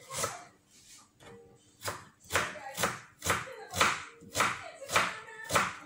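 A knife chopping on a cutting board. After a single knock at the start and a short lull, it settles into steady chops about two a second from about two seconds in.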